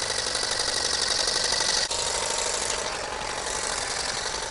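Small electric grass trimmer running steadily with a high motor whine, dipping briefly about two seconds in.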